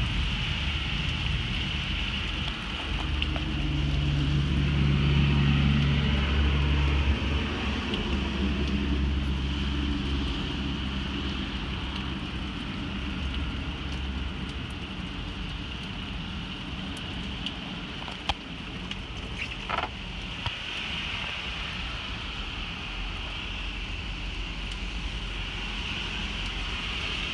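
Thunderstorm ambience: steady rain and wind hiss, with a low rumble swelling about three seconds in and fading by about eight seconds, and a few sharp taps later on.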